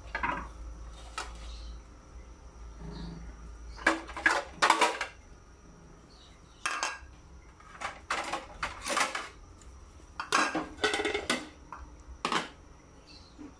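Cookware being handled on a stainless-steel stovetop: a glass pot lid and a metal cooking pot clinking and clattering in several short bursts.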